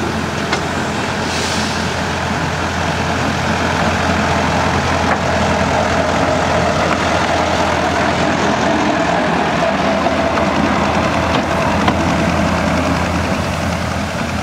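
Small Schöma narrow-gauge diesel locomotive's engine running as it approaches and passes close by, growing louder over the first few seconds and staying loud.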